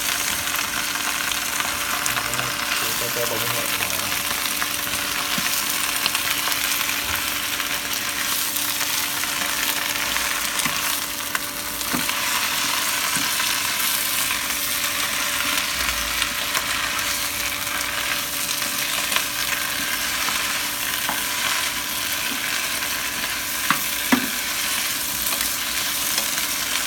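Carrot strips and bok choy being stir-fried in oil and butter: a steady, crisp sizzle as a wooden spatula stirs and tosses the vegetables in the pan, with a couple of spatula knocks near the end.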